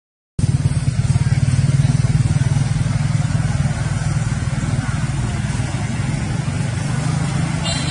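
Steady low, fluttering rumble, broken by a brief dropout in the first half second, with a short higher-pitched sound right at the end.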